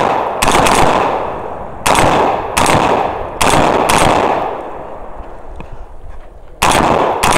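Rifle fired about seven times at an irregular pace, each shot ringing out with a long echo. There is a gap of a couple of seconds before the last two shots.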